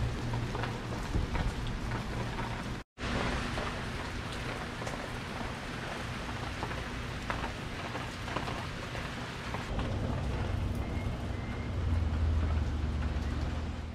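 Steady rain falling, an even hiss throughout, briefly cut off about three seconds in, with a low rumble that swells near the end.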